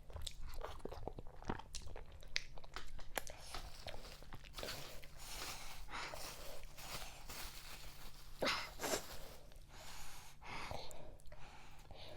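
Close-up eating sounds of fufu with okra vegetable soup: chewing, with many sharp wet mouth clicks and a few louder breathy mouthfuls.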